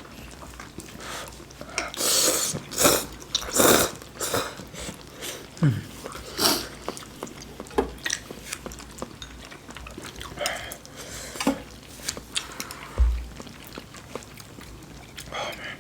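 Close-miked eating of budae jjigae (Korean army stew): wet chewing and biting with irregular mouth clicks and smacks, loudest a little after two seconds in.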